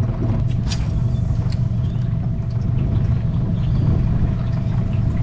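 A small boat's outboard motor running steadily with a low hum and a thin, even whine, and a sharp click about a second in.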